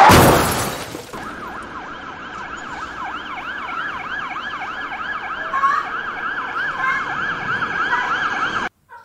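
A loud crash of a vehicle collision at the start, fading over about a second, followed by an emergency-vehicle siren wailing in fast up-and-down sweeps, about three a second, which cuts off suddenly just before the end.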